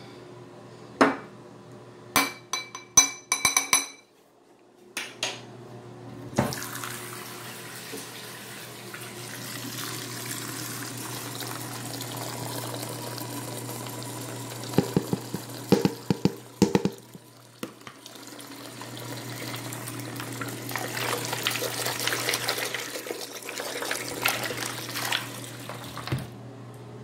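A few sharp, ringing clinks and knocks of dishes and containers being set down at a sink, then a bathroom faucet running steadily into the basin over a foamy mass, with a few knocks partway through.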